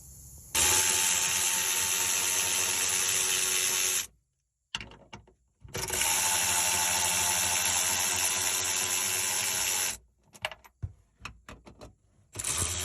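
Power tool running in long steady bursts of about three and a half and four seconds, with short clicks and taps between them.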